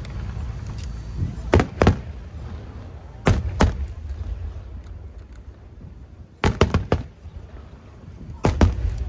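Aerial fireworks shells bursting high overhead: four clusters of sharp bangs, two or three at a time, about every two to three seconds, over a steady low rumble.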